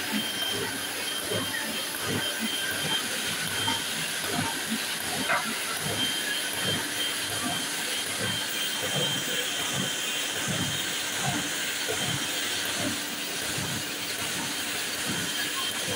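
Heidelberg offset printing press running, a steady mechanical hiss with a regular rhythmic clatter of its moving parts.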